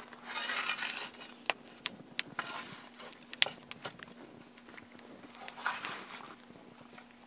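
Scoop shovel scraping and clinking in a wood stove's firebox as hot coals and ash are scooped up: a scrape at the start, a few sharp clinks, then more scraping near the end.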